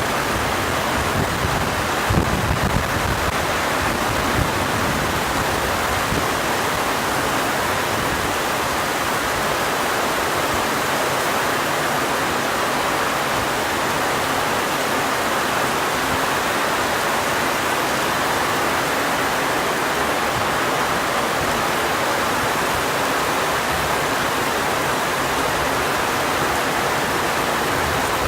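Heavy rain falling in a steady, dense hiss, with a few brief low rumbles in the first seconds.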